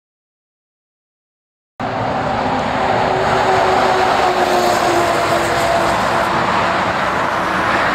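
Silence for about the first two seconds, then the sound of a lorry driving past close by cuts in abruptly: steady engine and tyre noise with a hum that slowly falls in pitch.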